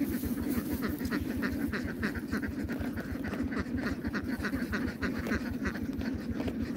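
Many ducks quacking in quick, overlapping calls, over a steady low hum.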